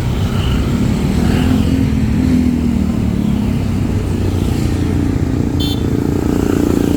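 A bus's diesel engine running loudly close by, a steady heavy rumble that swells slightly and eases. A short high-pitched squeal comes near the end.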